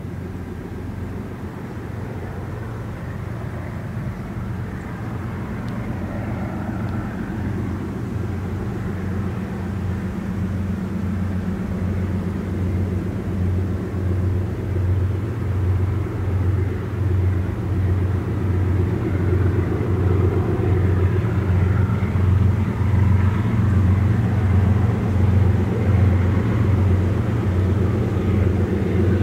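EL-class diesel locomotives approaching under power with a deep, regularly pulsing engine drone that grows steadily louder as they come closer.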